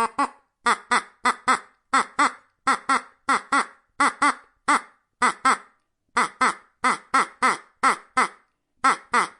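Duck quacking: a long run of short, nasal quacks, mostly in quick twos and threes.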